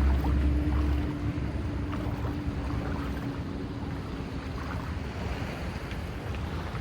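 A motorboat engine running with a steady hum, its deep rumble dropping away about a second in, over the hiss of wind and sea.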